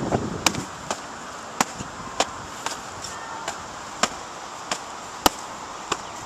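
Foam-padded striking bags swung on handles, slapping against a child's blocking arms and gloves. Sharp single smacks come about every half second, around a dozen in all.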